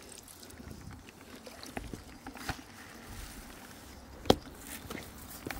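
A mesh dip net handled over wet rocks and a bucket of small fish: low splashing and rustling with scattered light knocks, and one sharp knock about four seconds in.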